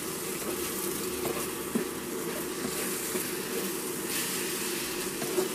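Scrambled eggs sizzling softly in a nonstick frying pan on an induction hob, with a spatula scraping through them and knocking against the pan a couple of times.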